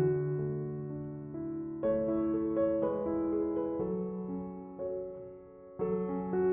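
Soft background piano music, slow sustained notes in a gentle melody.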